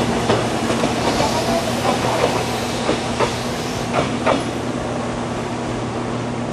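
Ex-Toei Mita Line 6000-series electric train running past and pulling away, its wheels knocking irregularly over the rail joints for about four seconds before the knocks die out and the running noise settles. A steady low hum lies underneath.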